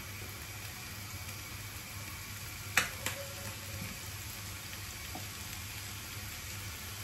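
Chopped onion, capsicum and carrot sizzling gently in a little oil in a frying pan over a gas flame, with a single clink about three seconds in.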